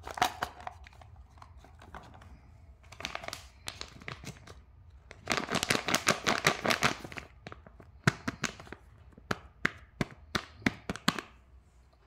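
Hard plastic toy parts clicking near the start, then clear plastic wrap crinkling and crackling as it is handled, with a dense stretch of crinkling in the middle and a run of separate sharp crackles near the end.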